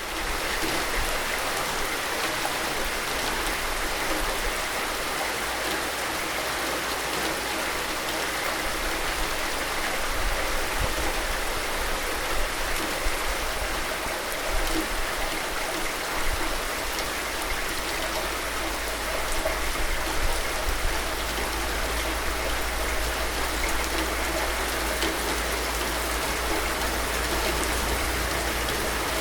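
Steady, heavy rain falling in a dense, even hiss, with a steady low rumble underneath.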